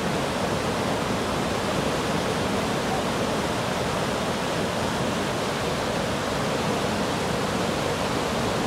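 Fast-flowing floodwater rushing and churning, a steady, unbroken rush of water.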